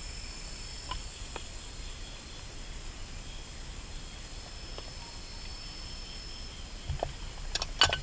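A steady chorus of night insects trilling at several high pitches. Over it come a few light clicks, then a quick run of louder metallic clinks near the end as an aluminium camping pot is handled and set down.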